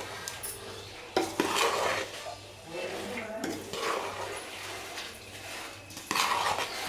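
A metal spoon stirring soaked puffed rice in a metal bowl. There are soft scraping and rustling sounds, and now and then the spoon clinks against the bowl, sharpest twice just over a second in.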